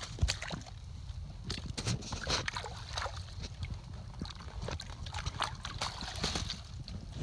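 Footsteps in rubber boots splashing and squelching through a shallow forest stream and wet leaf litter, with twigs and dry stems brushing and cracking underfoot in irregular clicks.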